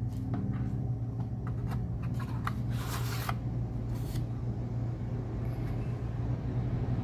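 Cardboard packaging being handled: small taps and clicks, then a short scraping rustle about three seconds in and another about a second later as the black cardboard insert is lifted out of its box. A steady low hum runs underneath.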